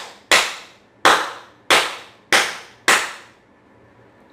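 Five sharp hand claps at a steady pace, each trailing off in a short room echo, ending about three seconds in. The claps are the trigger for a sound-activated clap switch, which toggles a relay and bulb.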